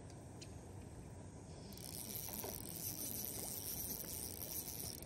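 Small spinning reel being wound to retrieve a lure: a faint, steady mechanical whir that starts about two seconds in.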